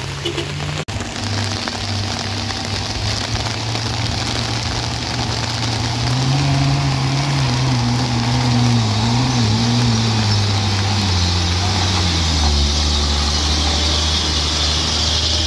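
A vehicle engine labouring under load on a steep climb, its pitch rising about six seconds in, wavering, then settling lower near the end, over a steady high hiss.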